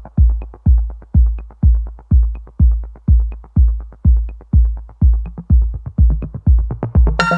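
Electronic music with a heavy kick drum about twice a second and lighter ticks between the beats; a loud sustained chord with many overtones comes in right at the end.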